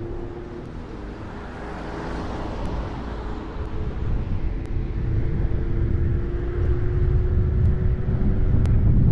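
A car driving along a road: steady engine hum with road and wind noise, growing louder toward the end.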